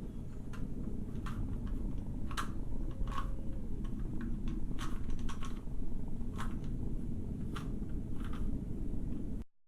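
A plastic Rubik's Cube being turned by hand, its layers clicking irregularly about once or twice a second over a steady low background rumble. The sound cuts off abruptly near the end.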